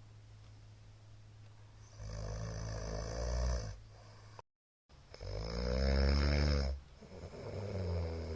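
A sleeping middle-aged man snoring loudly: after a quiet couple of seconds come three rasping, buzzing snores, the middle one the longest and loudest and the last one shorter. Just before the middle snore the sound cuts out completely for about half a second.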